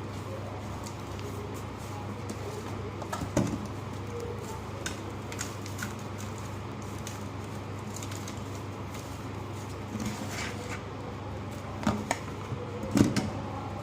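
Dry crumbly lumps of ash, sand and charcoal being crushed and crumbled, with soft crunches, a sharper one about three seconds in and several more near the end, over a steady low hum.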